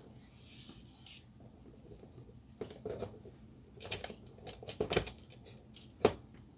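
Clicks and knocks of a laser printer fuser unit being handled as its heater and film sleeve assembly is seated in the plastic frame. A soft rustle comes about half a second in, then a cluster of clicks, and a single sharp click, the loudest, about six seconds in.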